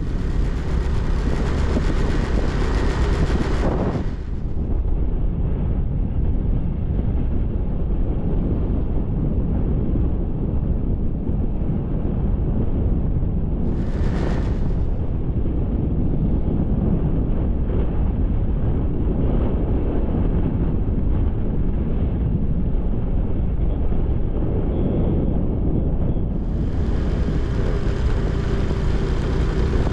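Steady wind rushing over the microphone, mixed with the engine and tyre noise of a motorcycle being ridden.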